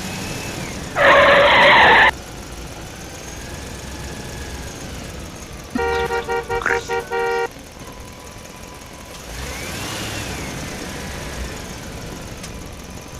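A vehicle horn honks once, loud and held for about a second. A few seconds later it gives a quick run of short toots.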